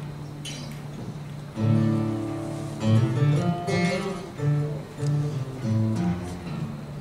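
Acoustic guitars played live: a held chord rings out, then about a second and a half in a picked phrase of single notes begins over low notes and tapers off near the end.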